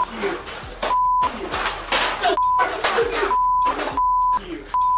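Censor bleeps: a steady beep tone cut in about five times, each under a second long, with the rest of the audio muted beneath each one, over profanity in a shouted argument. Raised, shouting voices are heard between the bleeps.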